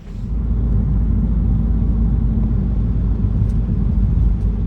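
A vehicle driving, heard as a loud, steady low rumble that starts suddenly.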